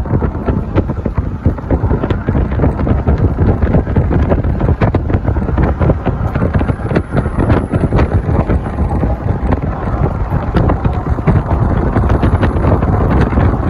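Heavy wind buffeting the phone's microphone: a loud, steady rumble with frequent crackles and knocks.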